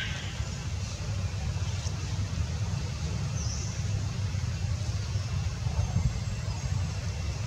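Mother cat purring, a steady low rumble, while her newborn kittens nurse.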